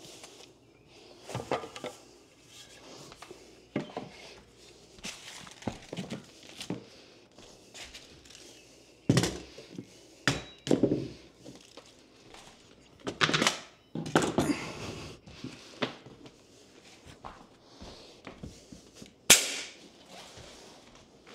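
Scattered thunks and knocks of hardwood flooring boards and pneumatic nailers being handled on a plywood subfloor, mixed with stretches of rustling. One sharp, loud bang comes near the end.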